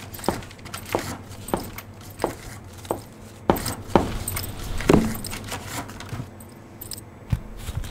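Footsteps of heeled ankle boots clicking on a tiled floor, a sharp click about every half second to three-quarters of a second, over a low steady hum. The steps stop about five seconds in, and a couple of fainter knocks follow near the end.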